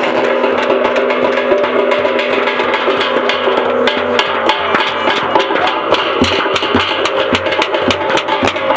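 Percussion-heavy music: rapid drum and wood-block-like strikes over a bed of sustained droning tones. One low drone drops out about four seconds in and the strikes come thicker after it.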